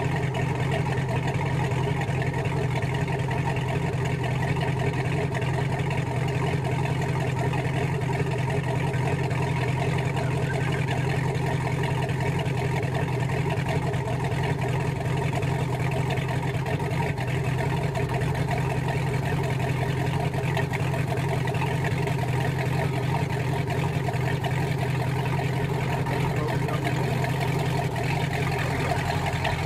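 Suzuki 150 outboard motor idling steadily, pushing a center-console boat slowly through the water as a low, even hum.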